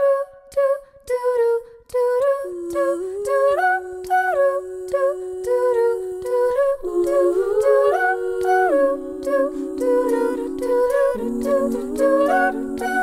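Background a cappella vocal music: voices humming a repeating short, bouncy figure, with held harmony notes joining about two and a half seconds in and more parts layering in over the following seconds.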